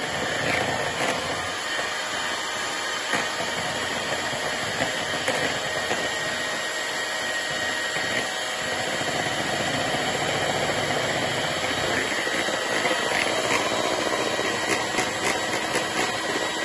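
Electric hand mixer running steadily, its beaters whipping cream that is still thin and runny. A few sharp clicks come near the end.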